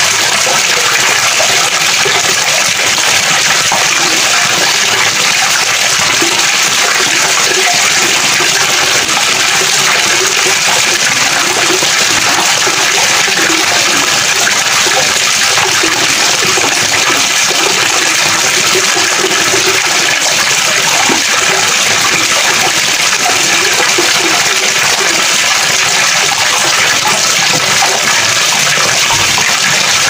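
Flowing water rushing steadily and loudly, without a break.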